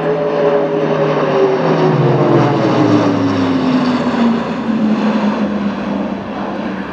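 Airbus A400M's four turboprop engines on a fast pass. A loud propeller drone whose pitch falls steadily as the aircraft goes by, loudest a couple of seconds in, then easing.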